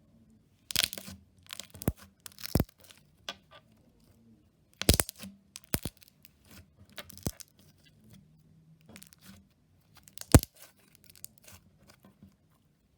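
Slime being stretched and squeezed by hand, giving irregular sticky crackles, pops and tearing sounds, with a few sharper snaps.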